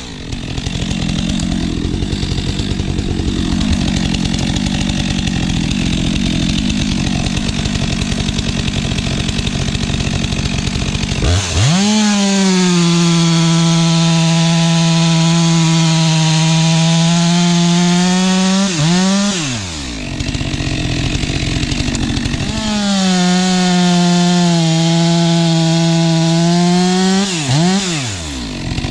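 Stihl MS462 chainsaw running at full throttle while bucking firewood logs on a freshly hand-filed chain. The engine note dips sharply and picks up again twice, about two-thirds of the way in and near the end.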